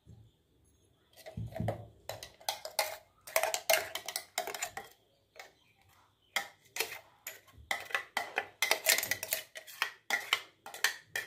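A metal spoon scraping and clicking against the inside of a stainless steel mixer-grinder jar, scooping out thick, coarse tomato chutney. The scrapes and taps come in irregular runs, starting about a second in.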